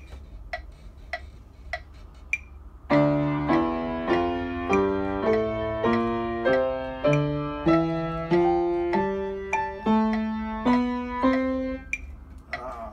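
Four evenly spaced clicks, then a piano playing about fifteen chords at an even pace, roughly one every 0.6 s.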